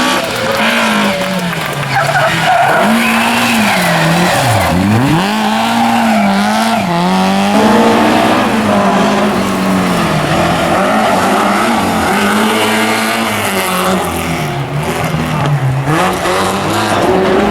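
Rally car engine at full stage pace, its revs climbing and dropping again and again as it brakes, shifts and accelerates, with one deep drop in revs about a third of the way through.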